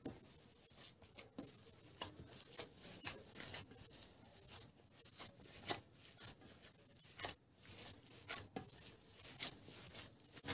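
Gloved hand kneading raw ground meat in a stainless steel bowl: irregular wet squishing and smacking as the mince is squeezed and turned.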